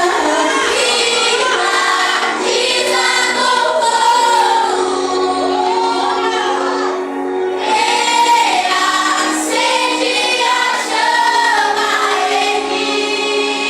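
A vocal group singing a worship song together over musical accompaniment, with long held and gliding notes.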